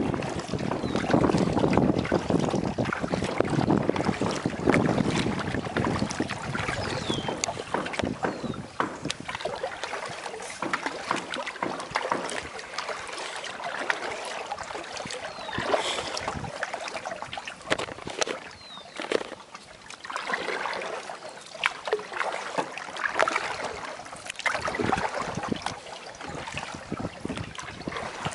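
Kayak paddle strokes splashing and dripping water, with wind buffeting the microphone through the first several seconds before it dies down.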